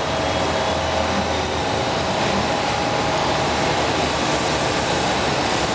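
Royal Master Generation 5 CNC centerless grinder running while profile-grinding a guidewire: a steady mechanical noise with a few faint steady tones in it.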